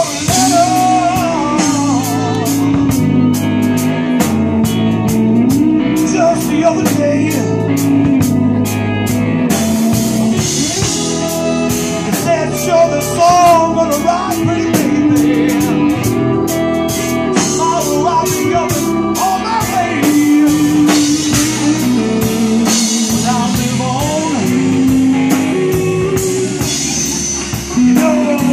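Live blues-rock band playing: electric keyboards, electric bass, electric guitar and drum kit, with a steady drum beat.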